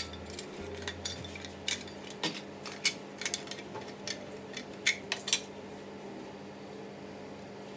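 Light clicks and clinks of small metal candle lanterns being opened and closed and metal-cupped tealight candles being handled and set down on a wooden surface, about three a second, dying away about six seconds in.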